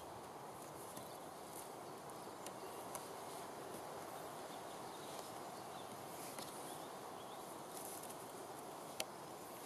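Faint handling of cord being wound tightly around a sawn branch, over a steady background hiss, with a few soft clicks and one sharper click about nine seconds in.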